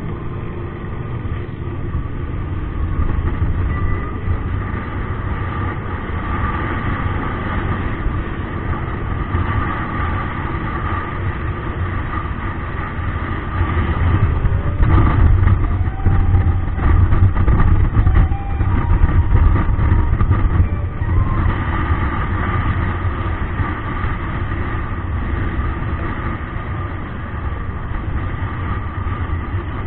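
Motorcycle engine running at cruising speed, heard from a camera mounted on the bike, with a steady rush of wind over the microphone. It gets louder for several seconds around the middle.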